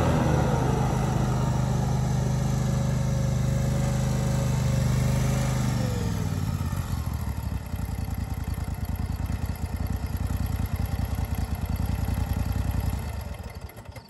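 Grasshopper 718K zero-turn mower's engine running steadily, then throttled down about six seconds in to a slow, uneven idle with distinct firing beats. It dies away near the end.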